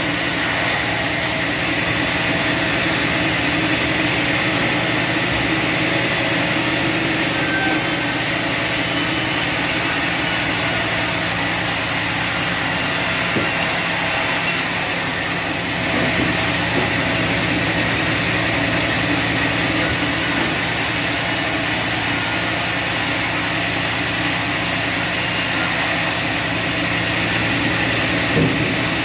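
Bandsaw sawmill running steadily, its engine and band blade sawing through a log. The sound dips briefly about halfway through, then carries on.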